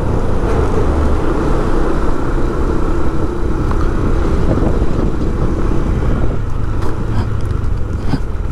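Steady motor-vehicle noise: engine and road rumble from traffic on the move, with no distinct single events.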